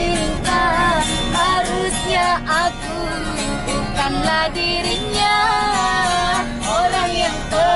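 A woman singing a melody with wavering, held notes, accompanied by a strummed acoustic guitar.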